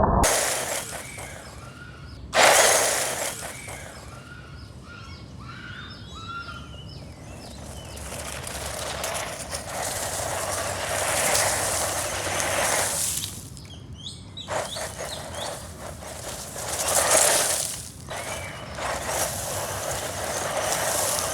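Small 1/16-scale electric RC car driving over rough ground in repeated passes, its tyres and drivetrain heard as irregular rushing surges; birds chirp between the passes.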